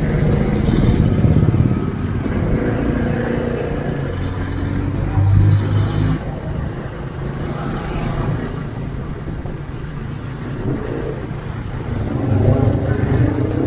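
Road vehicle engine running steadily while riding along a town street, with road and traffic noise; the engine hum swells briefly about five seconds in.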